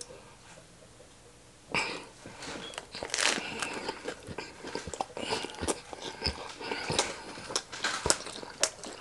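A close-miked bite into a romaine lettuce wrap filled with steak, chicken, shrimp and peppers: a sudden crunch about two seconds in, then chewing with many small crunches and clicks.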